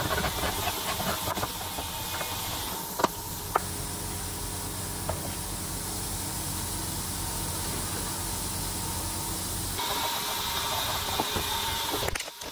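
Hand file rasping in quick strokes on a brass bolster held in a bench vise, then a steady hiss with a low hum. Two sharp clicks come about three seconds in.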